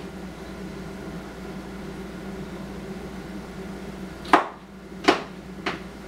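Steady hum of a kitchen appliance, with three sharp knocks of a knife chopping onion on a cutting board about two-thirds of a second apart near the end.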